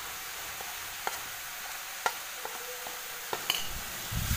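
Grated arum frying in oil in a kadai with a steady sizzle, a few sharp clicks of a metal spatula against the pan, and stirring starting near the end.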